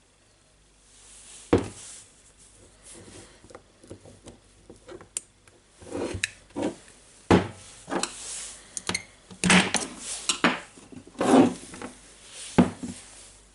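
Irregular knocks, clicks and scraping as parts of a DeWalt D25003 rotary hammer drill are handled and worked on by hand. Sharp knocks come about a second and a half in, about halfway through and near the end, with a stretch of rubbing between them.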